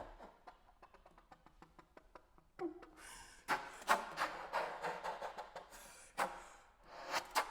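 Saxophone played with extended techniques, not ordinary notes: first a quick run of soft clicks, then a brief low tone, then breathy air noise through the horn broken by sharp percussive pops.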